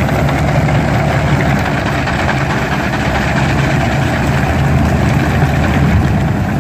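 Engine of heavy land-clearing machinery running steadily, a deep, even drone with no change in speed.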